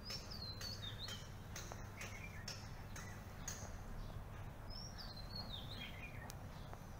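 A bird singing two high, descending warbled phrases, one at the start and one about five seconds in, over short high ticks repeating about twice a second and a steady low hum.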